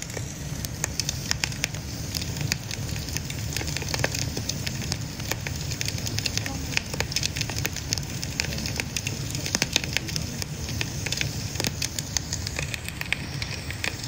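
Fire burning in a ger's metal stove, crackling with many irregular sharp pops over a steady rush.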